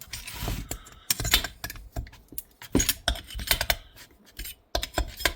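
Irregular light metallic clicks, taps and clinks of hand tools and small engine parts being handled during chainsaw engine assembly.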